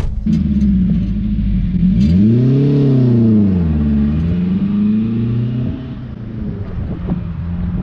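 A 1969 Toyota Corona with a swapped-in 1985 Toyota 4A-GE twin-cam four-cylinder accelerating away. The revs rise to a peak and fall back about three to four seconds in, climb again, then the engine sound drops away near six seconds as the car draws off.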